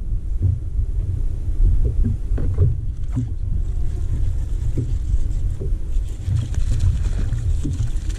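Small wind-driven waves slapping and knocking against the hull of a Phoenix bass boat, with wind rumbling on the microphone.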